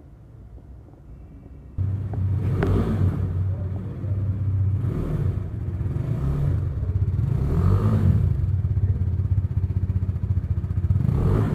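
KTM RC 390's 373 cc single-cylinder four-stroke engine starts up about two seconds in, then idles and is blipped several times, the exhaust note rising and falling with each short rev.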